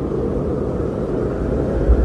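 Strong blizzard wind blowing steadily, a deep rushing noise, with a brief low gust buffeting near the end.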